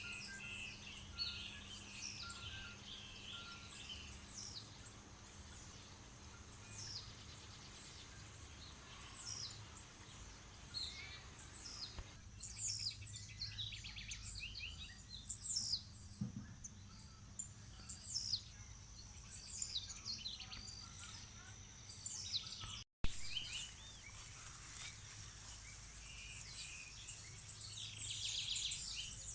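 Several birds chirping and singing in a dense chorus of short, quickly falling whistles, one after another, over a faint steady low hum. The sound drops out for an instant about three-quarters of the way through.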